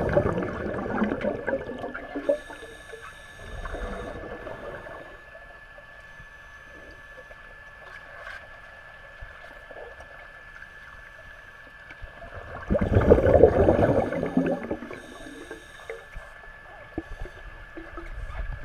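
Scuba regulator exhaust bubbles heard underwater: a loud burst of bubbling as a diver exhales at the start, and another about 13 seconds in, with quieter breathing sounds between. A faint steady high tone runs underneath.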